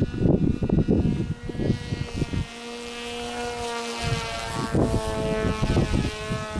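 Electric motor and propeller of an RC flying wing whining as it makes a low pass, the pitch stepping up about two-thirds of the way through. Strong wind buffets the microphone with low rumbling gusts.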